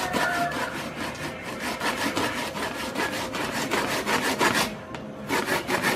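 A knife scraping raw fish flesh against a plastic cutting board in quick repeated strokes, several a second, pausing briefly near the end.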